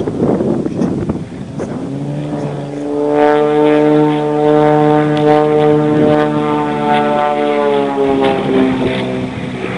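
Propeller airplane flying past: its engine drone builds about two seconds in, holds steady, then drops slightly in pitch and fades as it passes. Wind noise on the microphone at the start.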